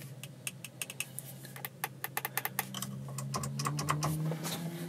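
Rapid, irregular light clicking of buttons and switches being pressed in a Ferrari F12's cabin, over a low steady hum.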